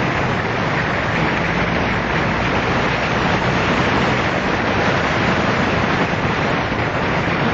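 Wind rushing over the microphone of a camera on a moving motorcycle, a steady loud hiss, with the engine's hum faintly underneath.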